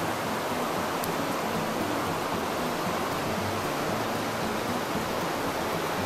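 Steady rush of river water running over rapids, an even hiss with no breaks.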